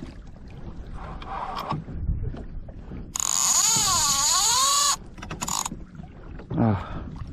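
Fishing reel's drag paying out line to a running fish: a loud buzzing whine for about two seconds, its pitch dipping and rising with the line speed, cut off abruptly and followed by a short second burst.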